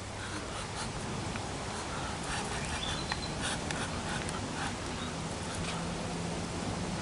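Short, scattered bird calls over a steady wash of outdoor background noise, with a low steady hum coming in near the end.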